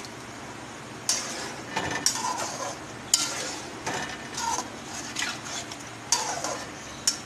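Spatula stirring and scraping chicken pieces around an aluminium pot of hot oil, about one scrape a second, over a steady frying sizzle: the chicken is being fried in oil with whole spices for biryani.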